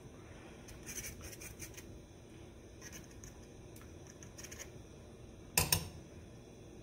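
Spoon stirring and scraping through a thick cream sauce in a pan, with light scrapes and clicks, then a sharp double knock of a spoon against the pan about five and a half seconds in.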